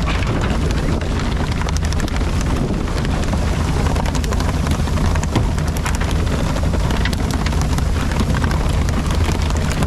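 Steady loud noise of a boat under way, its engine running, with wind buffeting the microphone.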